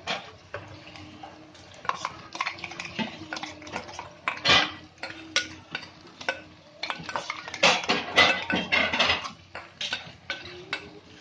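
A metal bowl clinking, knocking and scraping against a kadai as thick poppy seed paste is tipped and scraped out into it: an uneven run of clinks and scrapes, with the loudest clatters about four and a half seconds in and again around eight seconds.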